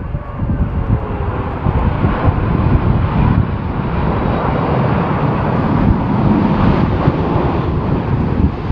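Jet airliner engines running loud and steady as an aircraft passes near the airport, mixed with strong gusty wind buffeting the microphone.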